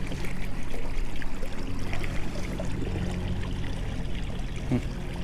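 Electric trolling motor running at maximum thrust with a steady low hum, water rushing and churning past the kayak hull. The motor is mounted off to one side and pushes at an angle, which the owner says causes a lot of cavitation.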